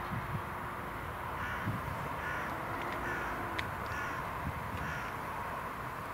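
A bird giving harsh calls, about five in a row starting a second and a half in, over the steady distant hiss and rumble of the BAe 146-300's four turbofans as the airliner rolls out down the runway.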